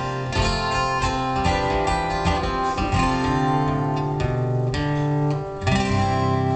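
Acoustic guitar strumming the closing chords of the song with no singing, a final chord struck near the end and left ringing.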